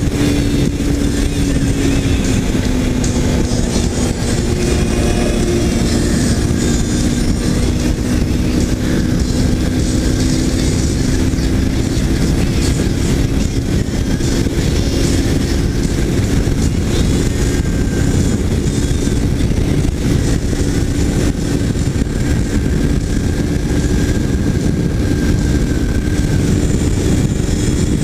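Kawasaki Ninja 300's parallel-twin engine running at a steady cruise over a dense rush of wind. Its pitch dips a little in the first few seconds, then climbs slowly.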